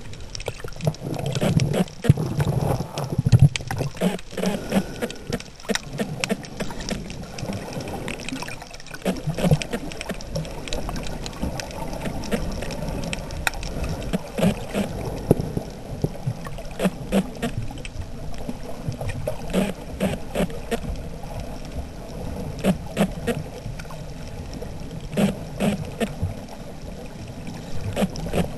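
Muffled underwater sound picked up by a camera sealed in a waterproof hard case: low rumbling water movement with scattered clicks and knocks against the case.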